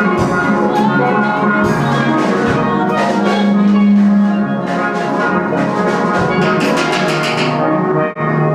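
Steel band music: steelpans playing a melody over drums, with a sudden brief break near the end.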